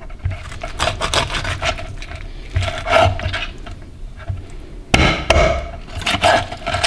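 Large kitchen knife chopping through rabbit pieces onto a wooden cutting board: a series of knocks as the blade strikes the board, the heaviest about three and five seconds in.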